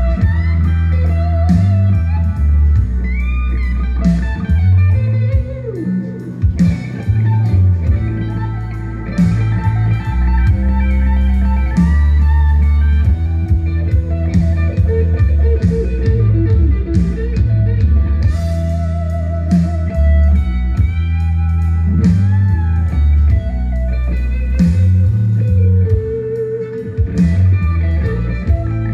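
Instrumental music with electric guitar over a heavy bass line, played loud through a sound-system speaker stack.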